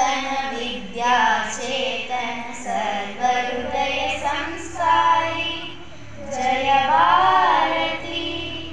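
A group of schoolgirls singing a prayer song together into a microphone, with long held notes.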